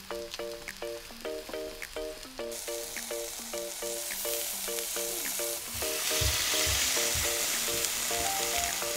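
Meat and vegetables sizzling on a hot electric grill plate. About two and a half seconds in the hiss grows, and from about six seconds it swells into a loud, dense sizzle as liquid is poured onto the hot plate and steams. Light background music with a plucked melody plays throughout.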